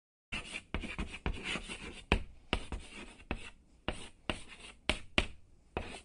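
Chalk writing on a chalkboard: a quick series of sharp taps, each followed by a short scratchy stroke, about two a second.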